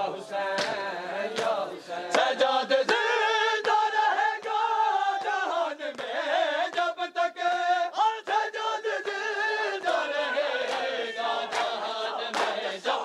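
Crowd of men chanting a noha (Shia lament) together, with sharp slaps of chest-beating (matam) coming at intervals.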